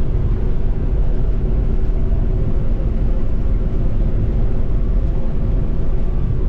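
New Holland CX5090 combine harvester running steadily while threshing wheat, heard from inside the cab as an even, deep machine drone with a faint steady hum over it.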